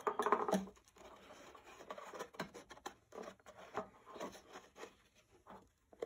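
Small handling noises as a two-blade trapper pocketknife is set into its metal display tin: light clicks, taps and rubs of fingers, knife and tin. The loudest cluster falls in the first half-second, then soft irregular ticks and scrapes follow.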